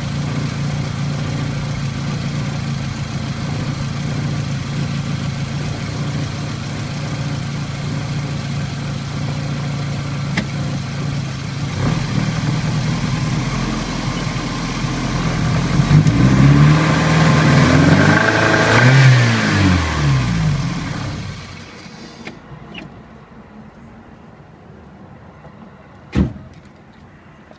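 Volkswagen ABA 2.0-litre four-cylinder engine running with a bad misfire, revved up and down a few times about two-thirds of the way in, then shut off; the owner suspects a failed injector or fuel pump. A single sharp knock near the end.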